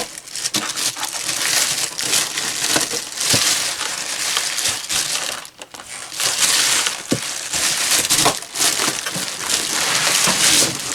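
Packing material crinkling and rustling as it is handled and pulled out of a box, with a brief pause about halfway.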